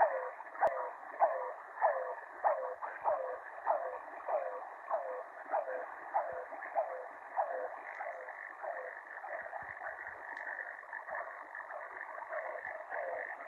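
Shortwave radio reception of the "Air Horn" signal on 4020 kHz: a repeating short falling tone, about three every two seconds, over the receiver's static hiss. The tones grow weaker through the middle and come up again near the end.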